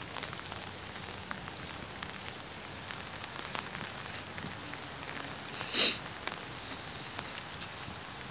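Steady light rain with small ticks of drops falling. About six seconds in there is one brief, loud, hissy swish.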